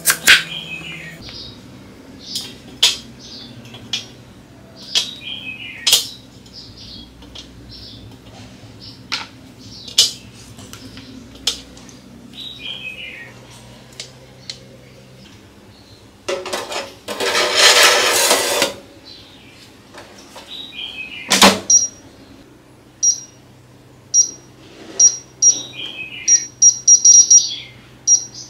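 A crinkle-cut knife chops through a peeled potato onto a wooden cutting board, with sharp cuts every second or two. About 16 seconds in there are two seconds of scraping noise, then a loud knock. From about 22 seconds on, an air-fryer oven's touch panel beeps over and over as its buttons are pressed to set the timer. Short falling chirps, like a bird's, come every few seconds.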